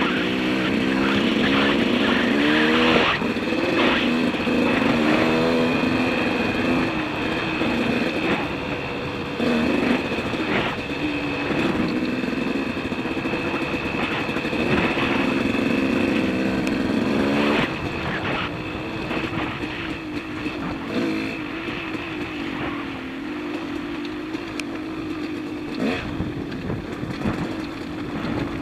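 Dirt bike engine running under way on a rough trail, its pitch rising and falling as the throttle opens and closes. Occasional knocks sound as the bike goes over bumps, and the engine eases off about two thirds of the way through.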